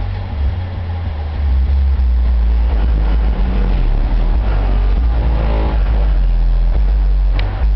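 Music with heavy, deep bass played loud through two 8-inch subwoofers, the low notes far louder than anything else.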